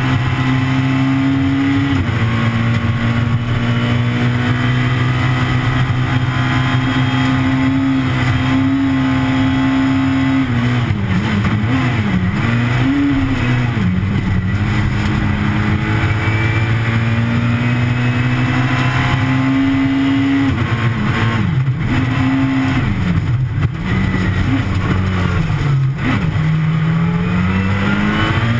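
Peugeot 207 S2000 rally car's 2.0-litre four-cylinder engine heard from inside the cabin, pulling hard at high revs. Its pitch climbs and then drops sharply at each gear change, and weaves up and down through corners. A few sharp knocks come in the second half.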